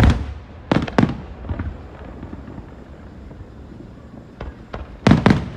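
Aerial fireworks shells bursting overhead: a loud boom right at the start that trails off, two more bangs about a second in, a couple of fainter pops later on, and a pair of loud booms near the end.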